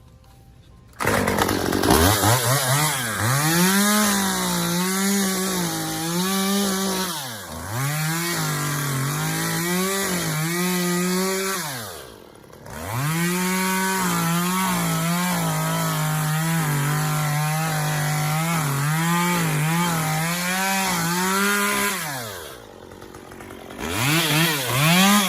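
Chainsaw engine running and being revved over and over, its pitch climbing and falling with the throttle. It drops back to a low idle about halfway through and again near the end, then revs up once more.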